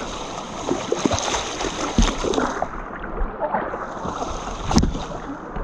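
River water splashing and running, with a few sharp knocks and clatters. The loudest knock comes near the end.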